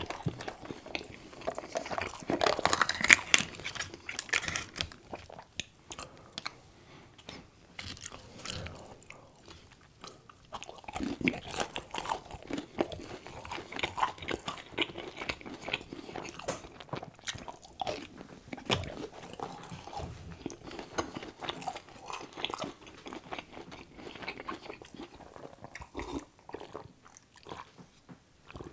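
Close-miked eating of fast food: crisp, crunchy bites and wet chewing, with the loudest crunching about two to four seconds in.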